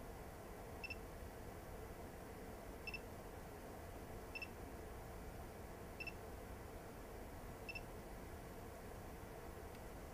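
Panasonic Lumix DMC-G2's operation beep: short high electronic beeps, five of them one to two seconds apart. Each beep confirms a button or dial press as the autofocus area is moved and resized. A steady low hum runs underneath.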